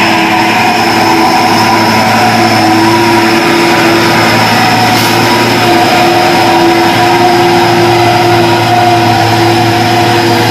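Diesel engine of a loaded Fuso HD 220 PS 6x4 truck running steadily under load as it climbs the hill, a constant engine hum that holds its pitch throughout.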